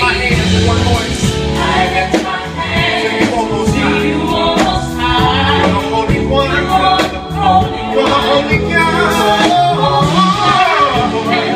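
Live gospel music: a male lead singer with a group of backing singers over a band, with steady bass notes and regular cymbal hits.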